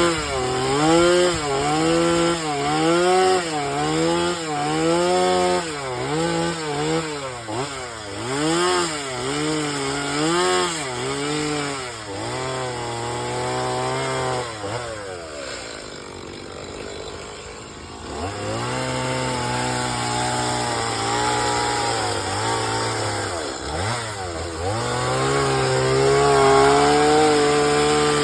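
Two-stroke chainsaw cutting into wood during carving, its engine pitch swinging up and down about once a second as the bar bites and eases off. A little past the middle it drops to a quieter idle for a few seconds, then runs at a steadier pitch with brief dips.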